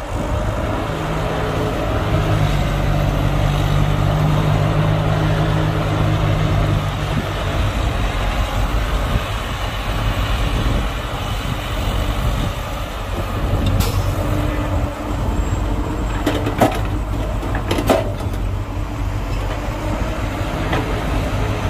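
Heavy earthmoving machinery's diesel engines running under load with a steady hum, which shifts pitch after about seven seconds. A few sharp clanks come in the second half.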